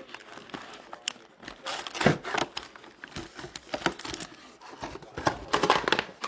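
Crinkling and tearing of trading-card pack wrappers being handled and opened, in irregular rustles with small clicks, louder about two seconds in and again near the end.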